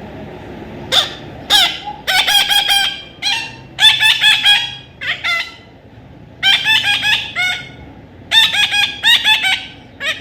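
A parrot calling in repeated loud, shrill notes, several in quick succession in each burst, with short pauses between the bursts.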